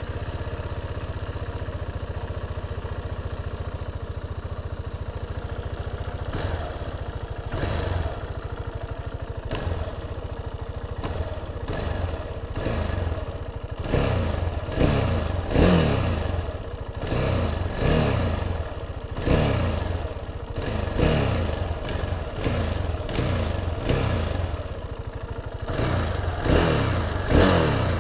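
KTM 690 Duke's single-cylinder engine idling on its stock exhaust, then revved in short throttle blips that come about once a second through the second half.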